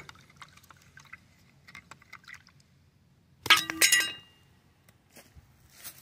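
A stick stirring a thin liquid in a plastic tub, with faint scraping clicks, then about three and a half seconds in a brief loud clattering clink with a short ring.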